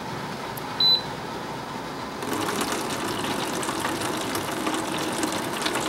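Atmospheric water generator dispensing water: a short electronic beep as its button is pressed, then about two seconds in its pump starts humming and water runs steadily into a plastic gallon jug.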